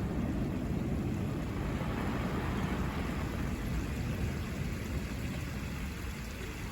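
Low rolling rumble of the finale fireworks' bursts echoing and slowly fading away, with no new bangs.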